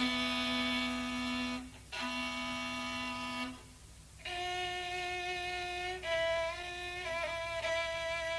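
Javanese rebab, the two-string bowed fiddle of the gamelan, playing a slow solo melody of long held notes with two short breaks and a wavering pitch in the second half, typical of the opening phrase of a gending before the ensemble enters.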